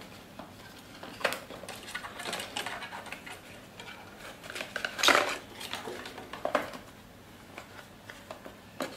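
Cardboard product packaging being opened and handled by hand: an irregular run of short scrapes, taps and knocks, the loudest about five seconds in.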